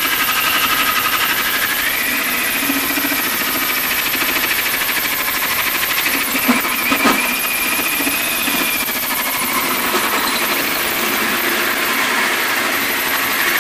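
Cordless drill spinning a hole saw through the sheet-metal wall of an ammo box under light pressure, the teeth cutting steel with a steady grinding and a wavering squeal. A couple of short knocks about six and seven seconds in, as the saw catches in the cut.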